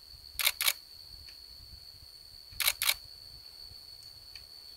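DSLR camera shutters firing twice, each time as a quick double click, about two seconds apart. A steady high cricket trill goes on underneath.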